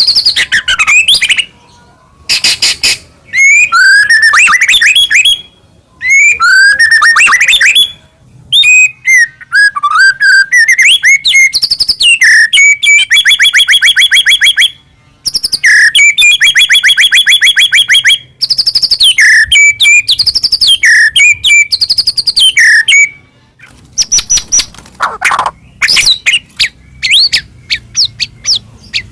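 White-rumped shama (murai batu) singing loudly in varied phrases: gliding whistles, sharp chips and long fast trills, with short breaks between phrases.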